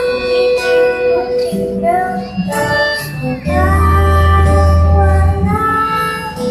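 A song: a high voice sings long held notes over instrumental accompaniment, with a deep bass note held for a couple of seconds about halfway through.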